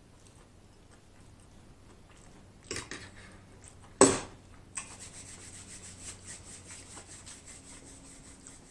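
Hands rubbing together briskly close to the microphone, a steady run of fine rapid strokes. It starts just after a single loud sharp sound about four seconds in.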